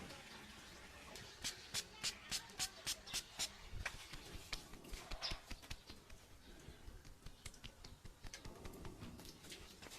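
A barber's hand tools working close to the head: a quick run of about eight sharp clicks, roughly four a second, then lighter, irregular scratchy strokes and clicks.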